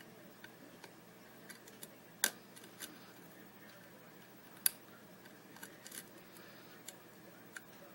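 Lock pick working the pin stacks of a Corbin Russwin large format interchangeable core under tension: scattered small metallic clicks and ticks, two louder ones about two and four and a half seconds in.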